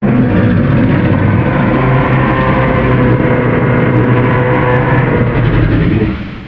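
A Godzilla film sound effect: a loud, low, rough rumbling sound that starts abruptly, holds for about six seconds, then fades out.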